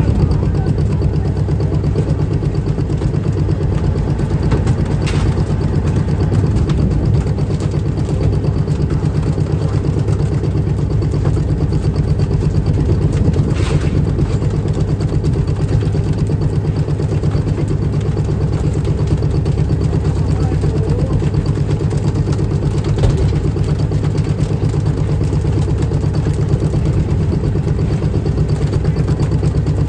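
Fishing boat's engine running steadily with a fast, even low throb. A few sharp knocks sound over it.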